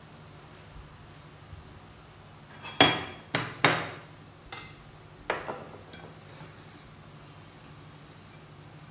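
Kitchenware clattering: a kitchen knife and dishes being picked up and set down, about five sharp clinks with a short ring, starting about three seconds in and over within about three seconds.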